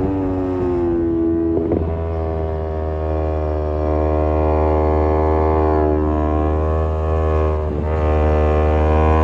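Kawasaki Z250 parallel-twin engine running through an aftermarket SeaPro muffler while riding, a steady exhaust drone. The pitch dips and rises gently, with brief breaks about two seconds in and near the end.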